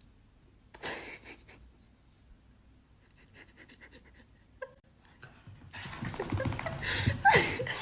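Dog panting and snuffling: a short burst about a second in, then louder breathing noise over the last two seconds.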